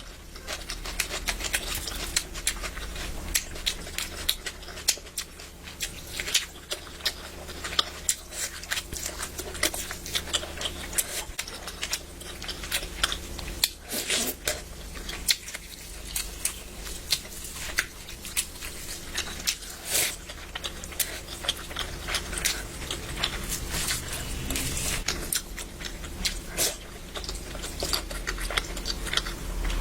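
A person eating curry, with close-up chewing and mouth smacks: many short, irregular clicks and wet smacks over a steady low hum.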